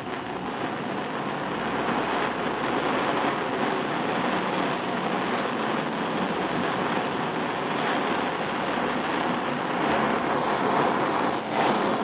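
Gas soldering torch burning with a steady rushing hiss as its flame heats a silver buckle to flow silver solder.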